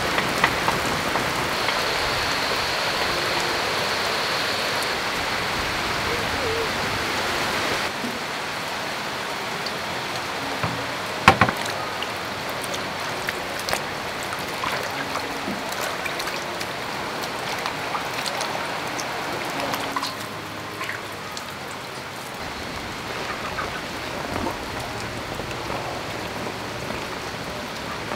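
Steady rain falling; from about eight seconds in, water swishing and splashing as sliced Pedro cactus flower stalks are washed by hand in a metal basin, with one sharp knock about eleven seconds in and lighter clinks after.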